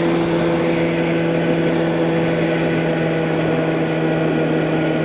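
2009 Kawasaki ZX6R's inline-four engine running through a Hotbodies MGP Growler slip-on exhaust, holding a steady engine speed with an even, unchanging drone.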